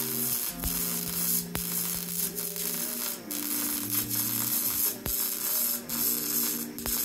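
Welding arc crackling in short runs on a custom exhaust pipe, cutting out and restarting every second or so as the joint is finish-welded. Background music with held notes plays underneath.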